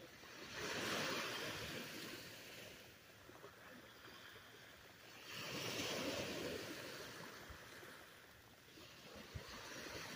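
Surf breaking and washing up the beach: a rushing wash that swells and fades three times, about a second in, around six seconds in, and building again near the end.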